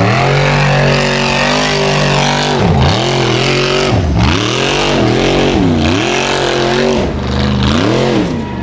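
Formula Offroad buggy's engine running at high revs on a steep sand-hill climb, the revs dropping sharply and picking straight back up about five times as the throttle is worked and the tyres spin in the sand.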